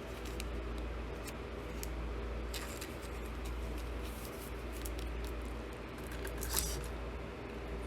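Trading cards and plastic card sleeves being handled: soft rustles and small clicks, with a louder rustle about six and a half seconds in, over a steady low hum.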